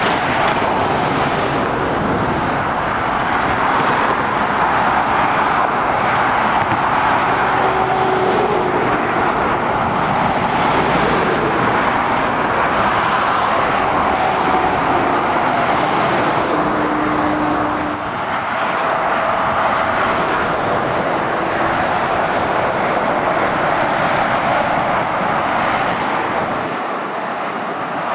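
Continuous motorway traffic noise from lorries and cars passing below: steady tyre roar and engine noise, with a few individual vehicles swelling louder as they go by.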